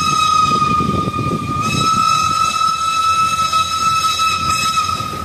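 Steam locomotive's whistle blowing one long, steady note for about five seconds, stopping near the end, over the low rumble of the approaching train.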